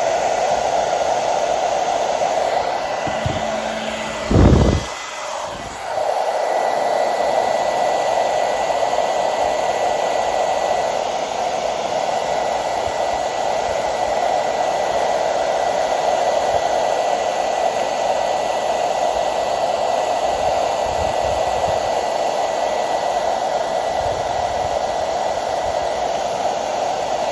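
Hand-held blow dryer running steadily on a plastic panel to heat it for bending, a steady rushing blow with a thin high motor whine. About four seconds in there is a brief thump and the sound dips for a moment before steadying again.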